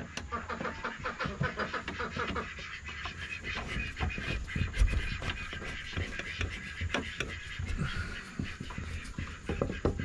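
Handling noise: rustling with many small irregular clicks and knocks as hands shift a linear actuator and its coiled cable against the coop framing, with a low rumble underneath.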